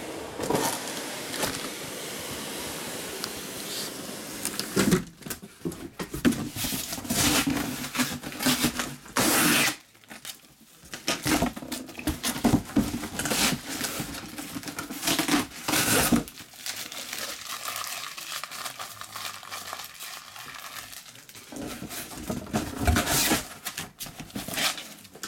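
Packaging of trading card boxes being handled and opened: plastic wrap and cardboard crinkling and tearing in irregular bursts.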